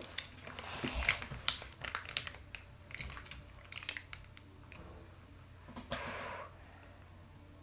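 Plastic slime package being opened and handled: small clicks and crinkling rustles, busiest in the first few seconds, with a short scrape about six seconds in.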